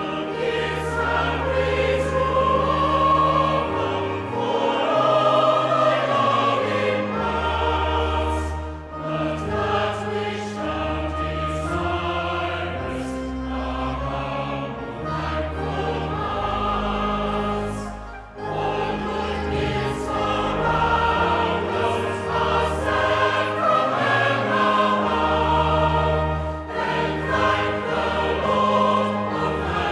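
A choir singing a song of thanksgiving, with sustained low notes of accompaniment beneath the voices.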